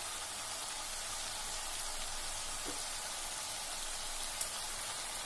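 Spinach and mixed vegetables sizzling steadily in a nonstick kadai over a gas flame, the dish fully cooked, with a few faint ticks.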